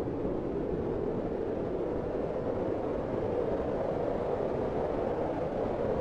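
Steady, even rushing noise with no distinct calls, knocks or changes.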